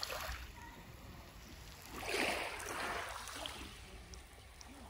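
Water washing, a rushing swell about two seconds in that fades away again.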